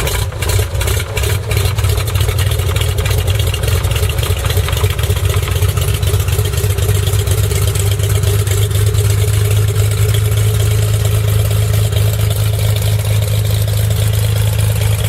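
Aircraft engine running with a loud, steady drone and a strong low hum, with a few crackles in the first second or so.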